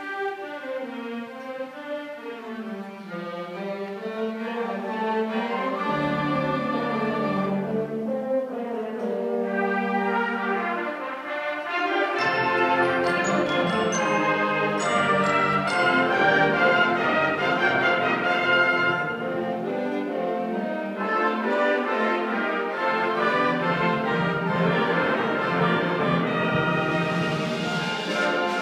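An 8th and 9th grade school concert band playing a piece live: a softer passage with a weaving low line, then the full band comes in louder about twelve seconds in.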